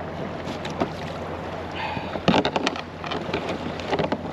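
Sharp clicks and knocks of handling as a bass is unhooked and a soft-plastic lure with its jig head is worked out of its mouth, loudest in a cluster a little over two seconds in, with smaller taps before and after. A steady low hum runs underneath.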